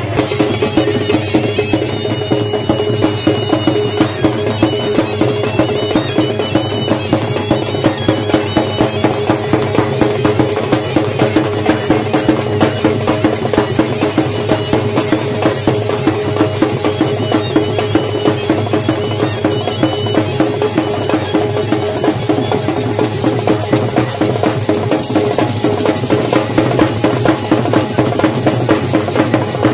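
Traditional drums playing a steady, even beat without a break.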